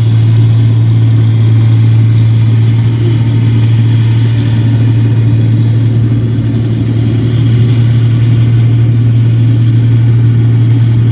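1545 rice combine harvester's diesel engine running steadily under load with a loud, constant low drone while harvesting paddy.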